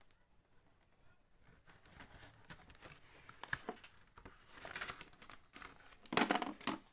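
Cardboard box and plastic packaging of a tool kit being handled and opened: scattered light clicks and rustling that grow busier, with a louder burst of crinkling about six seconds in.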